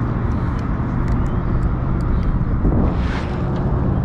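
Steady low rumble of wind buffeting an action camera's microphone, with a faint low hum underneath. Light clicks and a brief rustle come from handling the sabiki rig and the fish.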